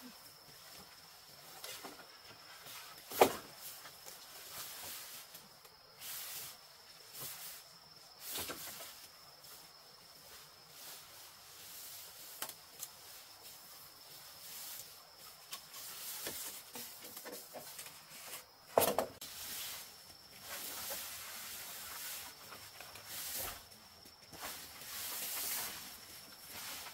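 Rustling and swishing through leaves and brush in bursts, with two sharp knocks, one about three seconds in and one near nineteen seconds, over a faint steady high-pitched whine.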